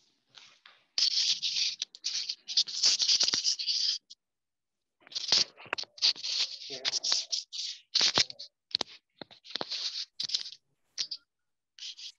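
Stop-start bursts of scratchy rustling and rubbing noise, like something being handled close to the microphone, broken by short pauses.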